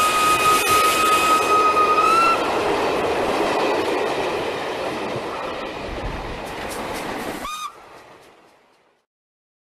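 Steam train whistle blowing one steady tone that steps slightly up in pitch and stops about two seconds in, over the hiss and rumble of a running train. The train noise slowly fades, is cut off by a short whistle toot near the end, and then dies away.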